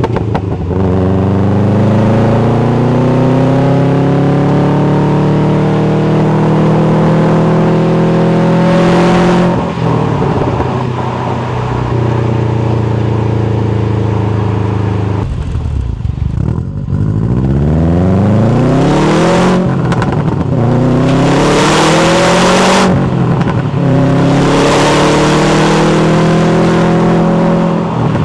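Subaru WRX STI's turbocharged flat-four sounding through a rare factory performance muffler, accelerating hard through the gears. The revs climb steadily, drop at each gear change and climb again, several times over.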